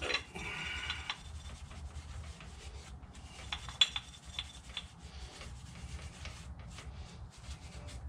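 Scotch-Brite scouring pad scrubbing an aluminum four-piston brake caliper in irregular rubbing strokes, scuffing off built-up oil and grime. A sharp click about four seconds in is the loudest moment.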